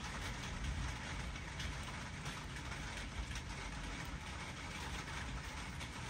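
Steady rain noise, an even hiss and rumble, with a few faint light ticks.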